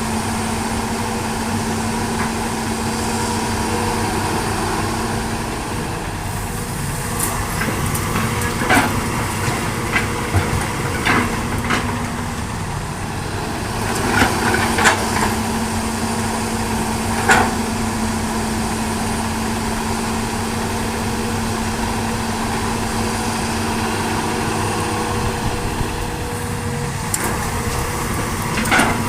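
Diesel engine of a hydraulic excavator running steadily under work, with a string of sharp knocks and clanks through the middle and another near the end.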